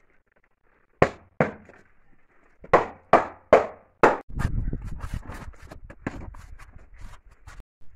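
Six sharp knocks on a decorative facade panel as it is tapped and pressed into place on a column. About four seconds in, they give way to a steady, gritty scraping of a trowel spreading mortar along a panel strip.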